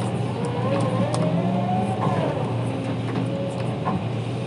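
Hydraulic excavator's diesel engine running steadily, heard from inside the operator's cab. Over it a hydraulic whine rises in pitch over the first two seconds and then falls away as the arm and bucket work the soil.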